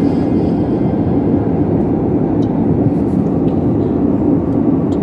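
Steady cabin noise of an airliner in flight, heard from a window seat: an even, deep rush of engine and airflow noise.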